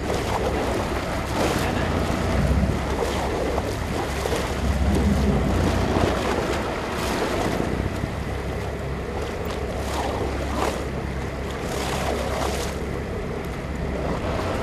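Ambient noise aboard a fishing boat at sea: a steady low drone with waves washing and wind buffeting the microphone.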